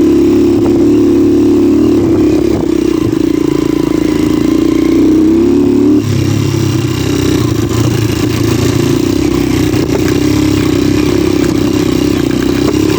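Motorcycle engine running under load on a rough dirt trail, its pitch edging up, then changing abruptly about six seconds in, as at a gear change or throttle change. The engine is steady apart from that one shift.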